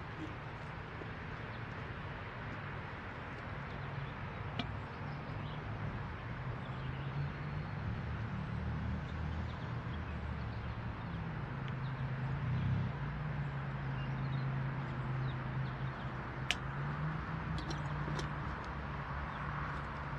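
Diesel locomotive engine running, a low steady drone that grows somewhat louder and shifts in pitch around the middle as the train approaches. A couple of sharp clicks stand out above it.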